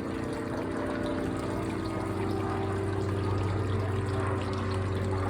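ICON A5 amphibious light aircraft, its Rotax 912 piston engine and pusher propeller giving a steady drone that swells slightly toward the middle.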